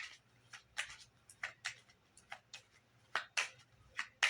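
Tarot cards being handled: a quick, irregular run of short flicks and rustling slides, about three or four a second.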